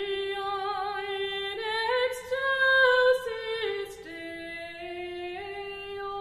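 Female voices singing a cappella: long held notes that step up and down in pitch, with no instruments.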